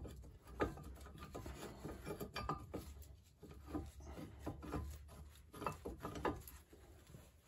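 Faint rubbing and scattered light knocks and clicks of hands fitting a new brake rotor onto the hub, with cloth brushing close by.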